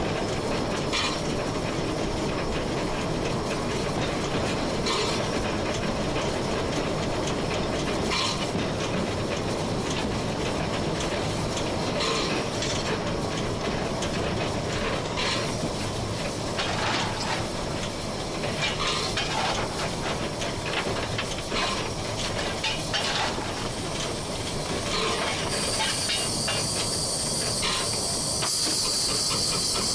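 1925 Belgian steam locomotive running under way, heard from the cab: a steady rumble with irregular wheel clicks over the rail joints. Near the end a loud steam hiss starts up and carries on.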